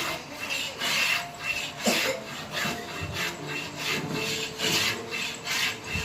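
Hand file rasping along the edge of a sunmica laminate sheet in repeated back-and-forth strokes, about two a second, trimming and finishing the edge.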